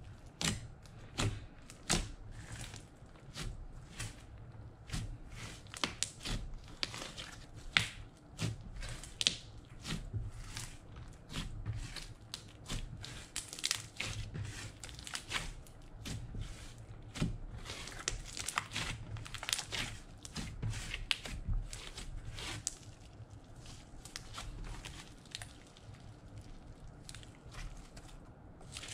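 Glittery blue slime being kneaded, folded and stretched by hand: a dense, irregular run of sticky crackles and small pops, several a second, thinning out a little near the end.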